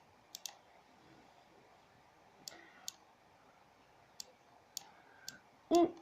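Scattered sharp clicks, about seven of them at irregular intervals, with a brief voice sound just before the end.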